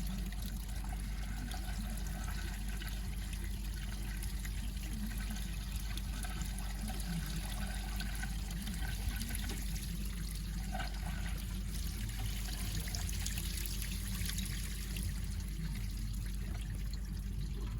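Warm distilled water flowing steadily through the engine's cooling system and trickling out as it is flushed, the water now running clean.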